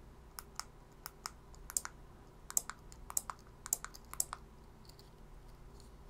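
Sharp plastic and relay clicks, about a dozen, mostly in close pairs, from the buttons of a 433 MHz key-fob remote being pressed and the relays of a KR1204 12 V 4-channel relay module switching channels 3 and 4 on and off in latch mode. The clicks stop about four and a half seconds in, leaving only a faint steady background.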